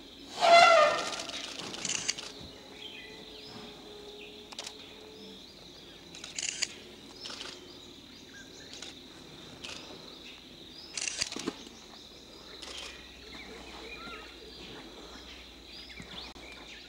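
A wild Asian elephant trumpets once, loud and about a second and a half long, just after the start: the call of a restive, agitated herd.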